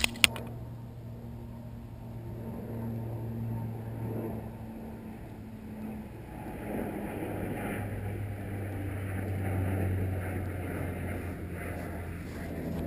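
Two sharp knocks just at the start as the V-tail tricopter tumbles into the grass after losing a prop, then the low, steady hum of its brushless motors still spinning at idle, wavering slightly in pitch, with a faint hiss that swells about halfway through.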